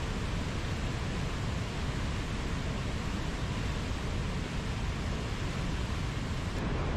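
Mountain stream flowing, a steady rush of water with no breaks or changes.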